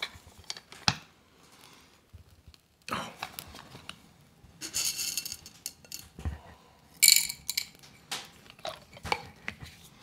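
Parts of a manual coffee grinder being handled and put back together: scattered sharp clicks and metallic clinks with short scraping bursts, the loudest clatter about seven seconds in.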